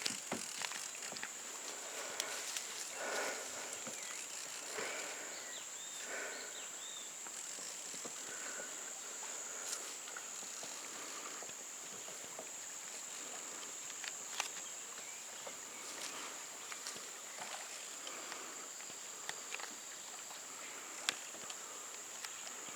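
Quiet outdoor ambience: a steady high-pitched drone, with a few faint chirps and scattered light knocks.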